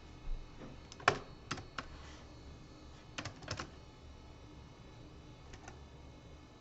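Scattered plastic clicks from a Toshiba Portégé 660CDT laptop's keys and pointer buttons: a few single clicks about a second in, a quick cluster of clicks around three and a half seconds, and one more near the end.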